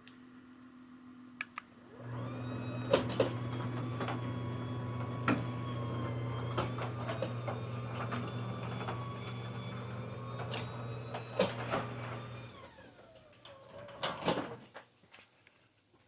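LiftMaster 8010 DC-motor chain-drive garage door opener running a door: a click, then the motor starts with a rising whine, runs steadily for about ten seconds with scattered clicks and knocks from the chain and door, and winds down with a falling whine in its soft stop. A few knocks follow as the door settles.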